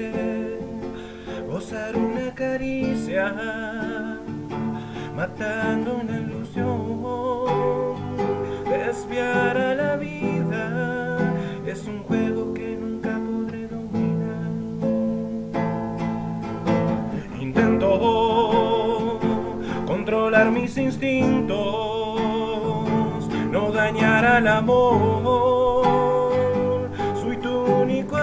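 A man singing, his held notes wavering, over his own acoustic guitar accompaniment.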